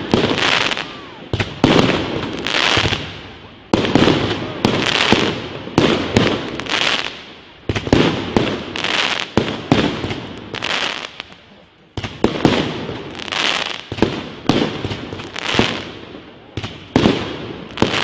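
Fireworks display: aerial shells bursting one after another, about every second or two, each sharp bang followed by a fading tail.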